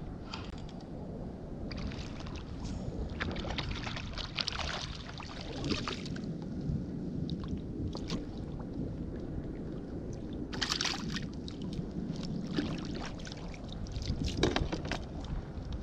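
Water sloshing and splashing beside a fishing kayak as a hooked fish is brought to the surface and lifted aboard, with a few short bursts of splashing and handling over a steady low rumble.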